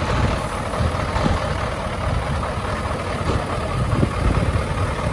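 Heavy truck's engine running steadily: a low rumble under a broad, even rush of noise.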